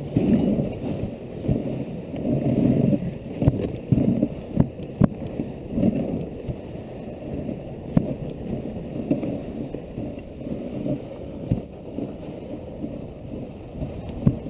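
Dog sled moving over a snow trail: the runners scrape and hiss on the snow in uneven surges, with a few sharp knocks as the sled jolts along.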